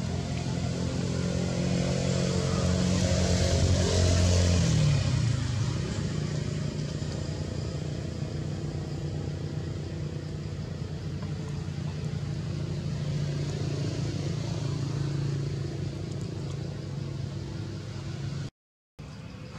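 A motor vehicle engine running steadily; its pitch slides down about four to five seconds in, then holds. The sound cuts out completely for a moment near the end.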